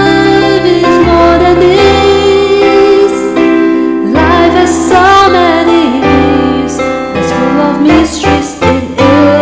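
Music: a slow song with a singing voice holding long, wavering notes over piano and keyboard accompaniment.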